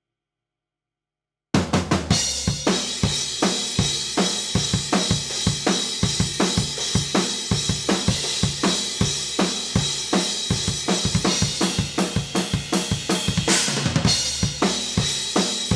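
Acoustic drum kit played in a busy, fast beat, with kick drum, snare, hi-hats and cymbals, picked up raw and unprocessed by a single Shure SM57 used as a close room mic. It starts suddenly about a second and a half in, and a cymbal crash rings out near the end.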